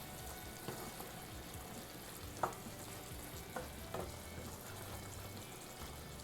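Chicken in mint paste with its released water sizzling gently in a pan while being stirred, a few light knocks of the spoon against the pan about two and a half, three and a half and four seconds in.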